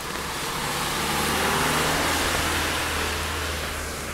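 A vehicle passing on a rain-wet street: tyre hiss swells to a peak about halfway through and fades, over a low engine hum whose pitch drops as it goes by.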